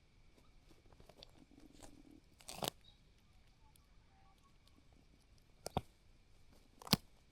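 Wedge-tailed eagle plucking and tearing at a Cape Barren goose carcass: faint rustling of feathers and flesh with three short, sharp rips or snaps spread through, the last the loudest.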